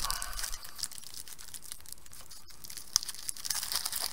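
Fingers handling a clear plastic atomizer tank fitted with rubber seals, making a light crackling rustle with scattered small ticks and one sharper tick about three seconds in.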